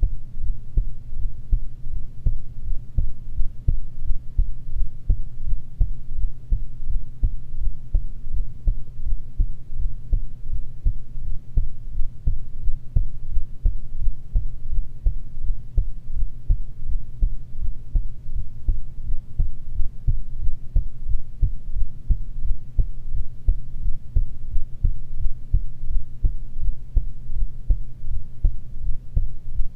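A person's heartbeat recorded close up: a steady, regular run of short low beats with a low hum underneath.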